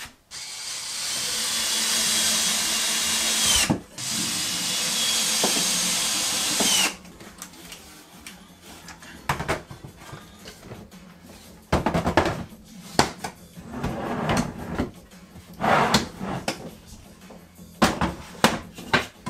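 A handheld power tool, most like a drill, runs at full speed twice for about three seconds each, with a steady high whine that winds down as it is released. Then come scattered plastic knocks and clatter as Systainer tool cases are shifted and slid into a cabinet unit.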